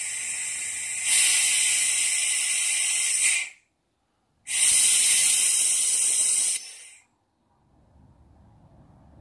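Compressed air hissing through a pneumatic vacuum brake bleeder as it sucks brake fluid and air bubbles out through the caliper's bleeder valve. The hiss comes in two bursts, the first growing louder about a second in, with a short silent break between; each cuts off sharply.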